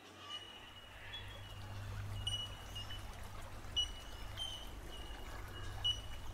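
Shallow rocky creek trickling and splashing over stones, fading in over the first couple of seconds. Short high chirps repeat over the water throughout.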